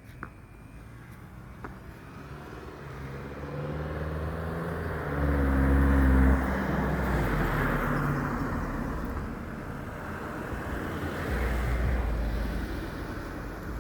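A road vehicle passing by: engine and tyre noise swell to their loudest about six seconds in and then fade, with a second, smaller swell near the end as another vehicle passes.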